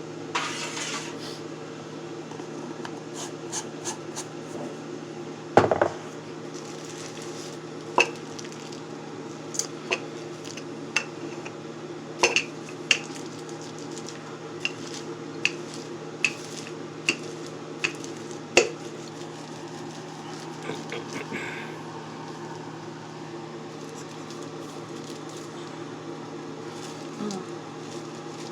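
Kitchen utensils and dishes clinking and knocking during food preparation: a string of sharp separate clinks through the middle of the stretch, the loudest about six seconds in, over a steady low hum.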